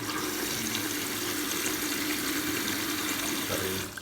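Samsung washing machine filling with water: a steady rush of water pouring into the tub, with a faint steady hum, that cuts off suddenly near the end.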